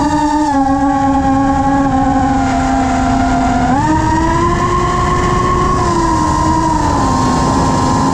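FPV quadcopter's brushless motors and propellers whining over rushing air. The pitch steps up about halfway through as the throttle rises, then eases back down near the end.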